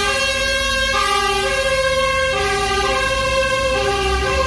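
Electronic siren sound from a toy fire truck, a pitched tone stepping between notes every half second or so.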